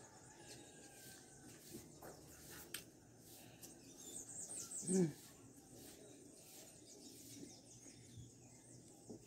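Quiet eating with a few faint mouth clicks. Between about four and five seconds in, a small bird chirps a quick run of high, falling notes, ending in a brief low voice-like sound that is the loudest moment.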